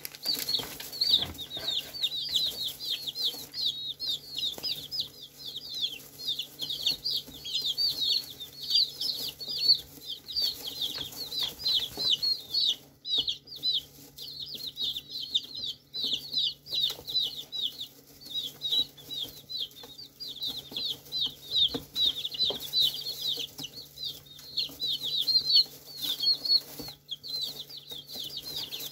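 A brood of young, partly feathered chicks cheeping without pause: many short, high, falling peeps a second overlap from several birds at once.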